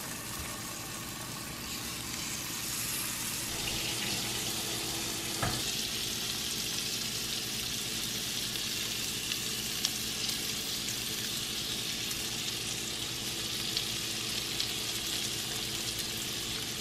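Food sizzling in a frying pan: a steady hiss that grows louder about four seconds in, with a single light knock shortly after.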